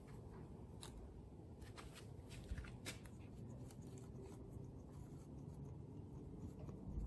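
Faint rubbing and rustling of an alcohol towelette being wiped over windshield glass, with a few light ticks, over low background noise.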